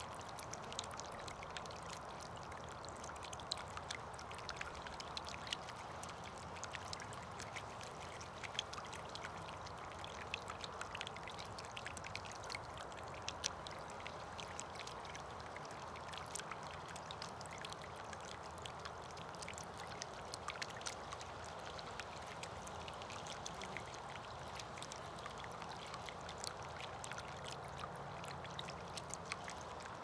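Steady trickle of running water, with many small irregular drips and clicks over it.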